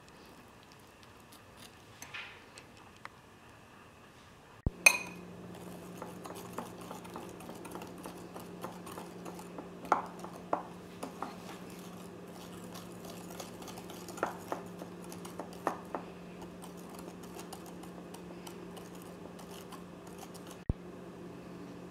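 Wire whisk clinking against a glass mixing bowl while beating a thick salad-dressing mixture, in scattered sharp clinks, loudest about five seconds in and again around ten seconds. A steady low hum runs underneath from about five seconds in.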